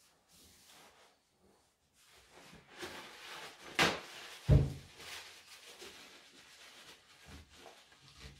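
Paper towel unrolled and torn off a roll with a sharp rip, followed about half a second later by a dull thump as the roll is set down on the table, then soft rustling as the paper wipes the chainsaw.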